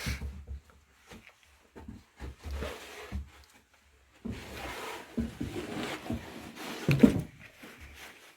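Irregular footsteps, thuds and rustling as someone moves through a room, with a louder knock about seven seconds in.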